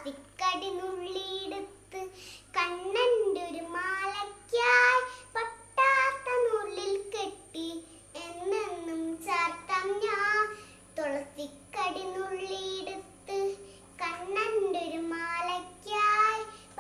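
A little girl singing a song on her own, without accompaniment, in short phrases with brief pauses between them.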